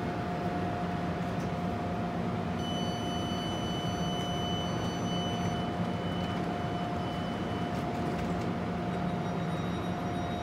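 A red S-Bahn Rhein-Main electric multiple unit standing at the platform with its doors open, its equipment giving a steady hum with a constant whine. About two and a half seconds in, a high steady tone sounds for about three seconds.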